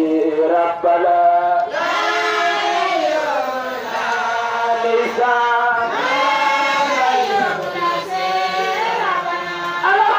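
A group of voices chanting a religious song together in sustained, melismatic lines, the sound growing fuller about two seconds in.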